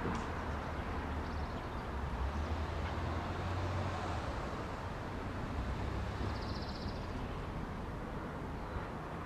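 Parking-lot ambience: a steady outdoor hiss with a low vehicle rumble that swells in the first half and fades, and a short, high, rapidly pulsing trill about six seconds in.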